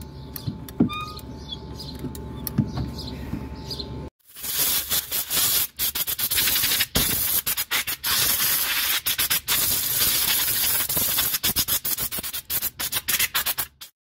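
Club Car golf cart accelerator pedal mechanism being worked back and forth by hand: faint squeaks and clicks at first, then, after a brief break about four seconds in, a loud harsh scraping rub repeated in uneven strokes with short gaps. This is the annoying noise from the pedal assembly that is being tracked down.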